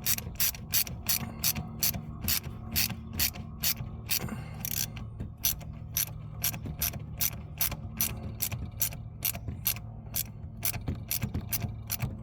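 Hand ratchet clicking steadily, about three clicks a second, as its handle is swung back and forth to tighten a fastener, with a short break and a brief scrape about four seconds in.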